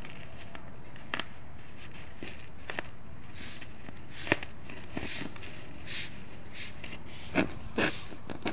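Woven plastic rice sack rustling and scraping as its gathered top is tied shut with a cord, with a few short sharp clicks, the loudest about halfway through and two more near the end.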